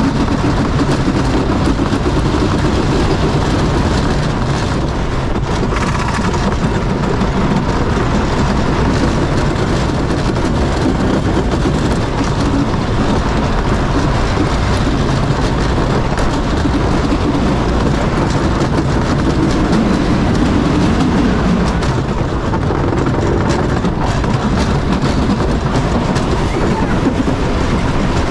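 Wooden roller coaster train running at speed along its wooden track, a loud, steady rumble and clatter of the wheels on the rails heard from the front car.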